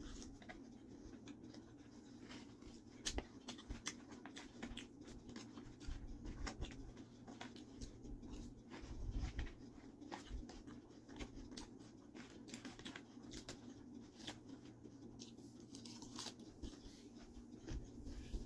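A fork clicking and scraping in a clear plastic salad container, with close chewing of crisp Caesar salad: many short, irregular clicks and crunches over a low steady hum.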